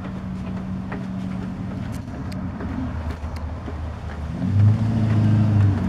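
A motor vehicle's engine running steadily with a low hum, growing louder for about a second and a half near the end, with a few faint scattered clicks over it.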